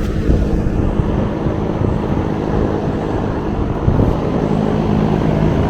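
A steady engine drone, holding one pitch throughout.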